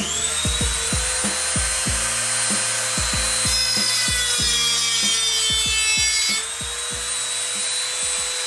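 Handheld high-speed rotary tool spinning up with a rising whine and running steadily as it works into balsa wood; its pitch sags for a few seconds mid-way as the bit bites, then recovers. Music with a steady drum beat plays underneath.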